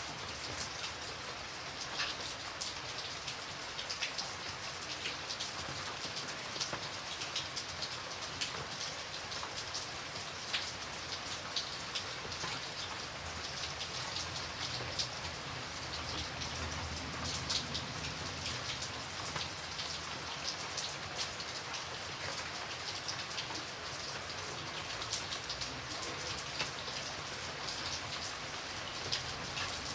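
Light rain falling steadily, a soft even hiss with many separate drops ticking on a surface.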